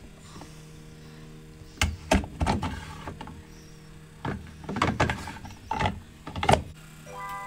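Plastic lint filter of a washing machine being pulled out and pushed back into its housing: a series of sharp plastic clicks and knocks over a low steady hum. A steady tone starts near the end.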